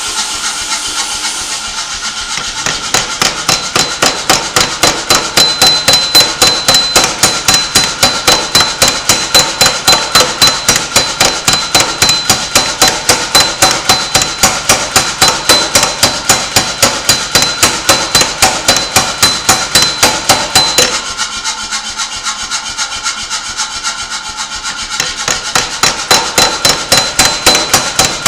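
Power hammer running steadily, its ram striking a copper bar on the dies several times a second, with a high ringing tone over the blows. The blows turn lighter for a few seconds about three-quarters of the way through, then come back to full force.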